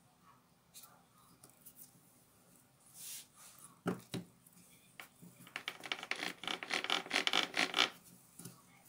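Hands working on the gear head of a Bosch GWS 7-125 angle grinder: scattered light clicks and knocks of metal and plastic parts, then about two and a half seconds of rapid scraping clicks in the second half.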